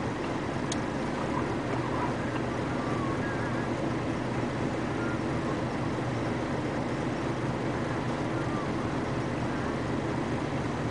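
Steady low drone of a Hino heavy dump truck idling beneath an asphalt plant's loading silo, with a single sharp click about a second in.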